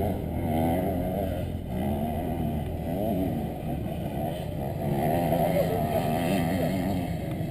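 Off-road motorcycle engine running, its revs rising and falling.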